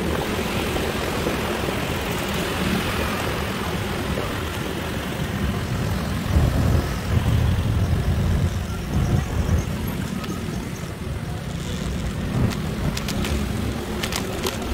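Riding sound on a small motorcycle: wind rushing over the microphone over the running engine and road noise, with gusts swelling louder about halfway through.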